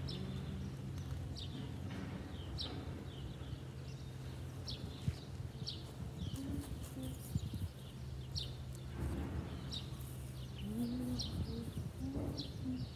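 A small songbird chirping repeatedly, a short sharp falling note roughly once a second, over a steady low hum.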